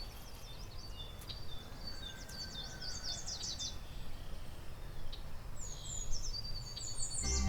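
Songbirds chirping and trilling, many short high calls, over a low steady background rumble. Music starts right at the end.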